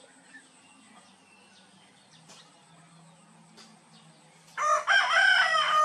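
A rooster crowing: one loud multi-part crow that starts near the end, rising and falling in pitch.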